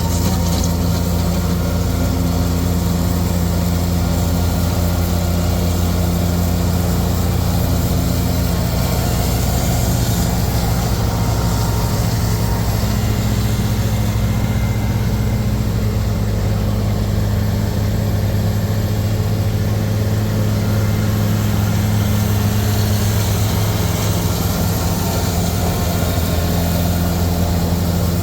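Tractor engine pulling a hay mower, running at a steady, loud drone while cutting a heavy alfalfa crop.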